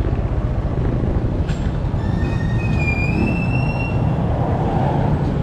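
Small Honda motorcycle engine running under way, with road noise. About two seconds in, a high squealing tone rises slightly and holds for about two seconds.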